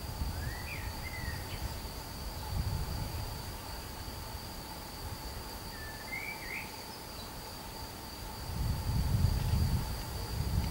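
Steady high-pitched insect trilling, with a fainter steady lower tone beneath it. Two short warbling chirps come about a second in and about six seconds in. A low rumble swells near the end.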